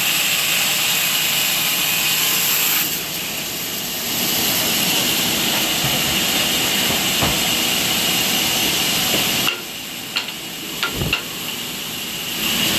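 Sawmill saw running and cutting a siris log into planks on the trolley: a steady loud hiss with a constant high whine. The noise eases twice, and a few sharp knocks come near the end.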